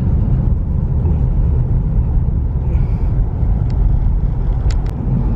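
Steady low rumble of a moving car's road and engine noise, with two short clicks a little before the end.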